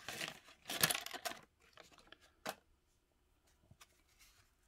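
Paper crinkling and scraping from an old wax-paper card pack and its cardboard cards being handled, in a cluster of short bursts over the first second and a half and once more about two and a half seconds in.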